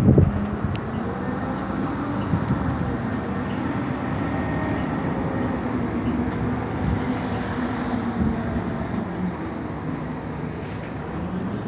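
City bus heard from inside its cabin while driving: a steady engine drone over road noise, with a loud thump right at the start.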